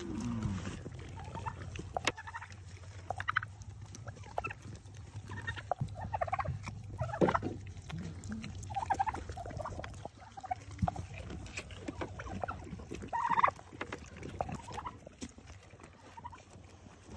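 Goats chewing and crunching grapes from a heaped wheelbarrow, with many small sharp clicks and crunches. Short calls from poultry come in here and there, loudest about thirteen seconds in.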